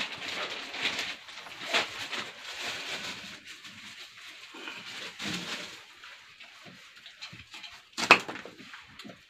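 Knife cutting and peeling a fresh banana flower, with crisp bract and floret pieces crackling and dropping into an aluminium pot, and a sharp knock about eight seconds in.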